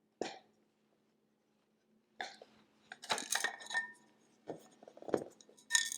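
Light clicks and metallic clinks of a 2013 Mac Pro's internal parts being lifted and handled during disassembly: one click near the start, then a scatter of knocks and clinks from about two seconds in, some with a short ring.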